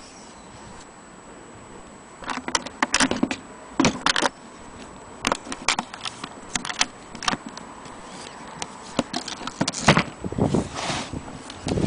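Vintage Corona typewriter's mechanism clacking and rattling in irregular bunches of sharp strokes, starting about two seconds in.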